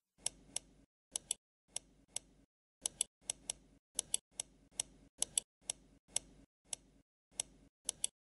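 Computer mouse clicking: about twenty sharp, short clicks at uneven spacing, some in quick pairs, as mesh vertices are selected and dragged.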